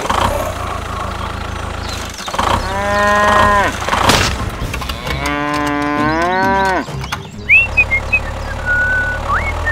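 Cow mooing sound effect: two long moos, the second rising then falling in pitch, over a steady low hum. A few short high chirps follow near the end.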